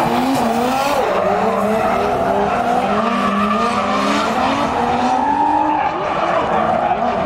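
Drift car engines revving hard, their pitch rising and falling over and over, with tyres squealing as the cars slide.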